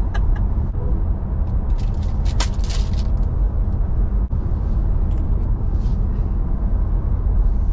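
Steady low road and tyre rumble inside the cabin of a moving Tesla Model 3 Performance, with a short rustle about two and a half seconds in.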